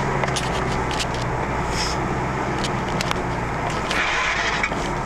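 4x4's engine running at low revs, heard inside the cab while it drives slowly over a rough dirt trail, with scattered clicks and knocks from the bumps and a brief hiss about four seconds in.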